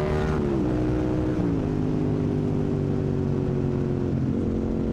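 Yamaha MT-07's parallel-twin engine running through its exhaust with the baffle plug removed. Its note drops slightly twice in the first couple of seconds, then holds steady.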